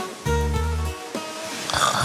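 Background music with plucked strings and a bass line; near the end a loud snore breaks in.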